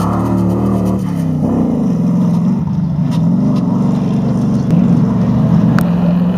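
Off-road racing vehicle engines running hard, their pitch rising and falling as they rev. The sound changes abruptly about a second in.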